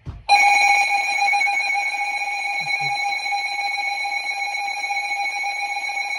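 Emergency Alert System attention signal: a loud, steady electronic alert tone that starts about a third of a second in and holds unchanged. It is the tone that precedes a spoken emergency alert message.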